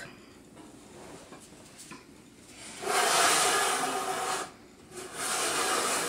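Rubbing, scraping noise as a sewing machine's foot pedal is moved into reach: two stretches, the first about three seconds in and lasting a second and a half, the second starting shortly before the end.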